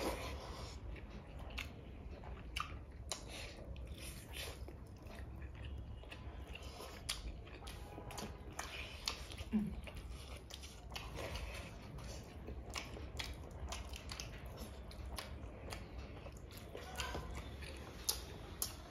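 A person chewing and biting food, with many short, crisp clicks of the mouth and food.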